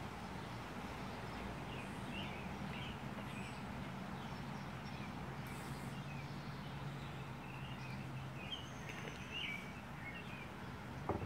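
Small birds chirping off and on over a steady hiss and low hum, with a sharp click near the end.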